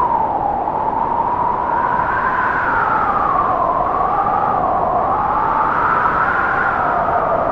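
Blizzard wind howling, a whistling tone that wavers slowly up and down over a steady rush of wind noise.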